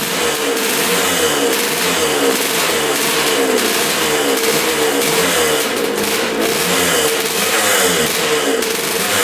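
1977 Suzuki RM125's single-cylinder two-stroke engine running on its stand just after its first start in over 20 years, its pitch wavering up and down a little.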